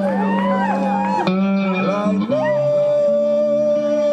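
Live band music led by guitar, its notes bending and sliding in pitch, then settling into one long held note about two seconds in.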